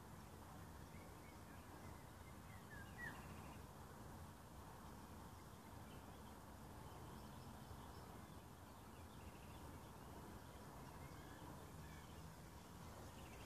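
Near silence: quiet outdoor ambience with a low, steady rumble and a faint bird chirp about three seconds in, a few more faint chirps later.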